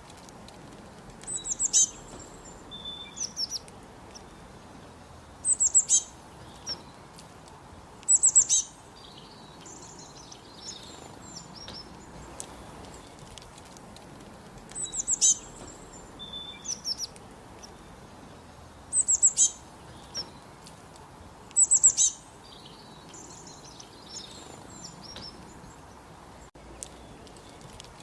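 Northern cardinal singing: short phrases of rapid, high down-slurred whistles repeated every few seconds, with softer notes between them.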